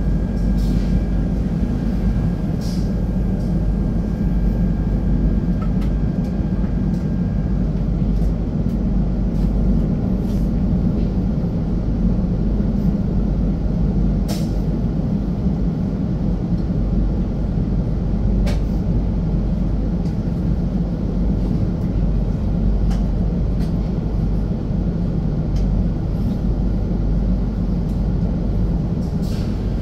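Steady low running rumble of a KTM ETS Class 93/2 electric multiple unit travelling along the line, heard from on board. A few sharp clicks come through it, and a faint thin tone runs for the first several seconds.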